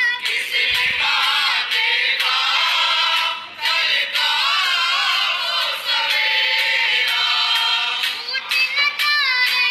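A background song with several voices singing together, like a choir.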